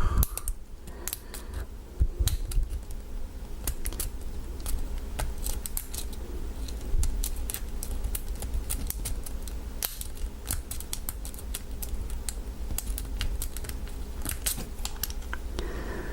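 Thick steel hook pick and tension wrench working inside an American 1100 padlock during single-pin picking: irregular small metallic clicks and scrapes as the pick moves over the pins, over low handling noise.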